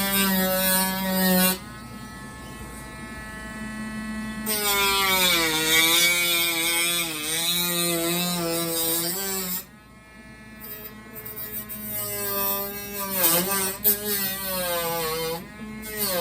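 Cordless rotary tool cutting acrylic plastic, its high motor whine running in three spells with short breaks, the pitch sagging and wavering as the bit loads up in the plastic.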